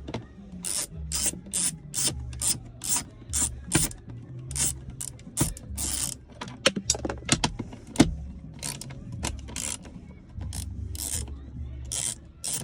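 Hand ratchet with a 7mm socket and extension clicking in repeated back-and-forth strokes as screws are backed out of plastic cup holder trim, over a low steady hum.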